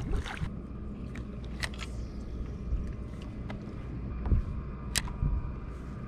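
Wind on the microphone and water lapping against a small boat, with a short splash right at the start as a released mangrove snapper drops back into the water, and a few light clicks scattered through.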